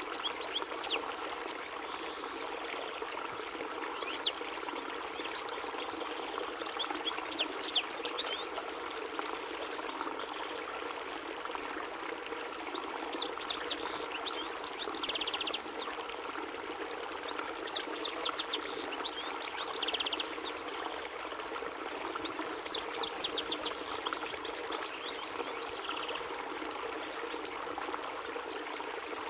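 European goldfinch (chardonneret) singing rapid, tinkling twittering phrases, four bouts of a couple of seconds each, over a steady rush of running water.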